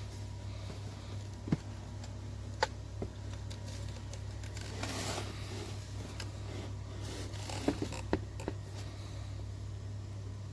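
A handful of faint, sharp clicks, two near the start and a close cluster in the second half, with a brief soft rustle in between, over a steady low hum.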